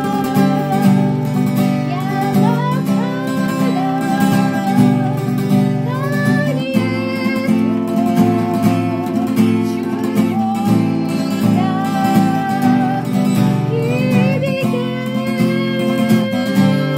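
Acoustic guitar strummed in a steady rhythm, accompanying a voice singing a slow worship-song melody with long held notes.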